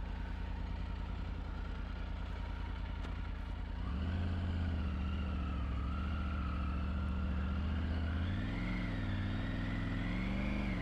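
Triumph Tiger 900 Rally Pro's three-cylinder engine running on the move. About four seconds in it gets louder as the throttle opens; the pitch dips and wavers a little past eight seconds, then climbs toward the end.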